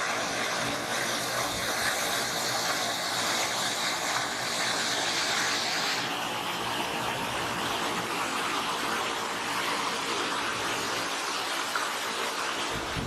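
Steady rush of water from a garden waterfall, an even hiss; the highest part of the hiss drops away about six seconds in.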